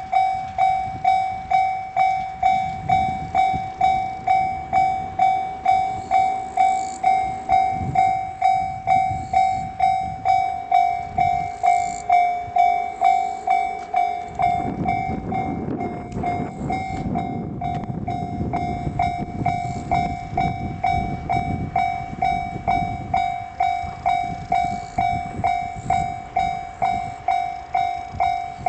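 Japanese level-crossing alarm ringing its repeating electronic 'kan-kan' tone, about one and a half strikes a second. An electric express train passes over the crossing from about halfway through, its rumble and wheel clatter lasting around ten seconds, with the alarm sounding on over it.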